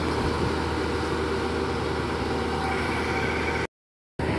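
Rice combine harvester engines running steadily as the machines work the field. The sound cuts to silence for about half a second near the end.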